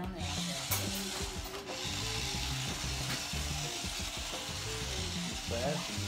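Steady hiss of a small motorised floor robot running across a hard floor, over background music with a bass line.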